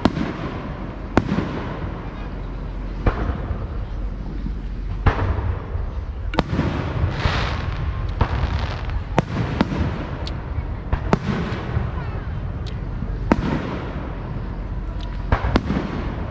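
Fireworks going off: a dozen or so sharp bangs at irregular intervals, one to two seconds apart, each trailing off in a short echoing rumble.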